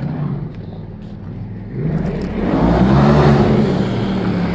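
Stripped-down Polaris RZR Turbo side-by-side driving toward the listener, its engine running steadily and growing louder from about two seconds in, loudest a little past halfway.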